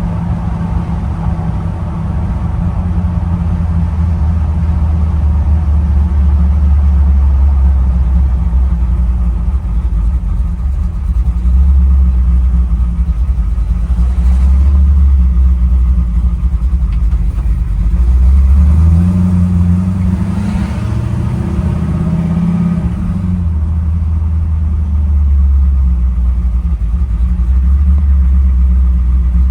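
1965 Chevy C10's small-block V8, which the owner thinks is a 383, running while the truck is driven. The engine note is steady and low, rises in pitch for a few seconds about two-thirds of the way through as it picks up revs, then settles back.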